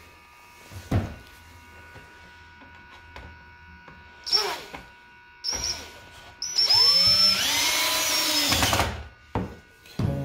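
Cordless drill driving a screw into a wooden stretcher-frame joint: two short trigger blips, then a longer run of about two and a half seconds whose whine rises as the motor speeds up and then cuts off. A few light knocks of tool and wood come before and after.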